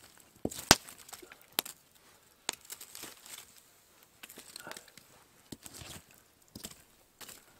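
Campfire being stirred, its burning logs shifted with a stick: a handful of sharp wooden knocks and cracks at irregular intervals, the loudest a little under a second in, with smaller ticks between.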